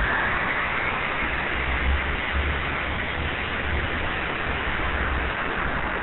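Republic XF-84H Thunderscreech turboprop running with its supersonic propeller: a steady rushing noise with a low rumble underneath.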